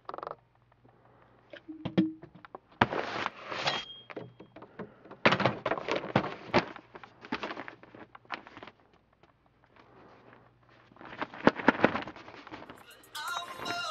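Irregular knocks, clicks and short rustling bursts of handling noise, with a quick run of sharp clicks about eleven seconds in. Music starts again near the end.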